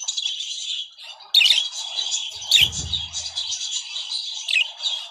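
Budgerigars chattering in a cage: a continuous high warbling with sharp, loud chirps about a second and a half in, in the middle and near the end. A short low rumble sounds near the middle.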